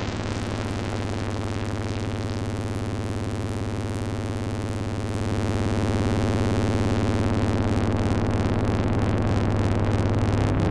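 Analog synthesizer drone from a VCO run through the Behringer 121 Dual VCF, its filter open wide: a steady low buzzy pitch with a harsh, gritty top. It swells louder about halfway through.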